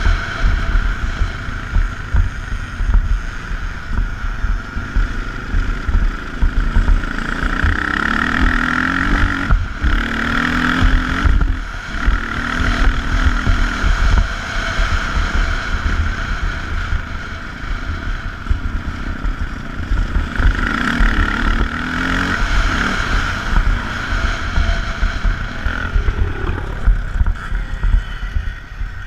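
Twinshock motocross bike's engine running hard under the rider, revving up and falling away several times, with heavy wind buffeting on the helmet-camera microphone.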